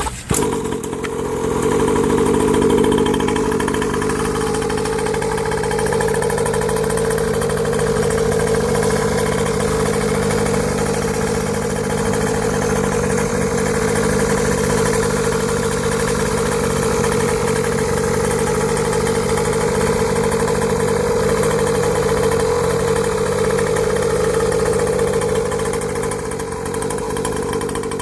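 Coyote 50cc mini dirt bike's two-stroke engine running steadily with a high-pitched drone that holds one pitch throughout.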